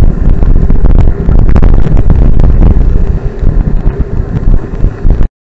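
Heavy wind buffeting on a bicycle-mounted camera's microphone while riding in heavy rain, with scattered sharp clicks. The sound cuts off abruptly near the end.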